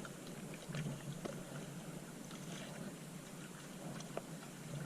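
Faint steady background noise on a small fishing boat, with scattered light clicks and one sharper click about four seconds in.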